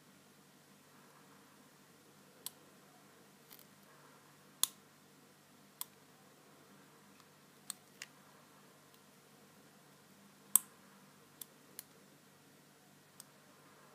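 Small, sharp clicks from a lock pick and tension wrench working the serrated pins of an American 1105 padlock, about ten of them at irregular intervals, the loudest about ten and a half seconds in.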